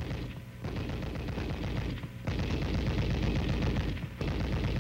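M73 7.62 mm tank machine gun firing fully automatic in three bursts of rapid shots. The first burst starts just under a second in, a longer second burst starts at about two seconds, and a third begins shortly before the end.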